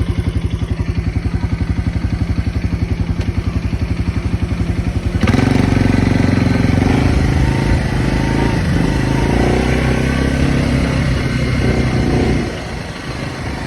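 UTV engine idling with an even, pulsing throb, then revving hard about five seconds in and running at high revs, its pitch rising and falling. It eases off briefly near the end.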